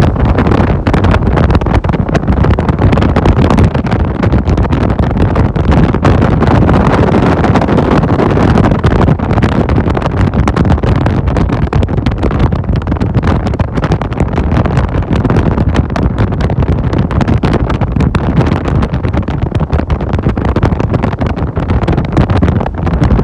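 A bass boat running fast on open water, pushed by a Mercury XR6 150 V6 two-stroke outboard. Steady, heavy wind buffeting on the microphone mostly covers the engine and hull noise.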